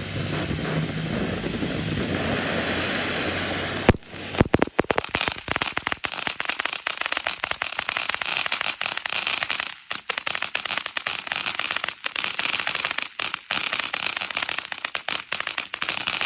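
Phantom Fireworks Wrath of the Hydra fountain firework burning: a steady hiss of spraying sparks, then about four seconds in a sharp pop, after which the fountain changes to dense, rapid crackling.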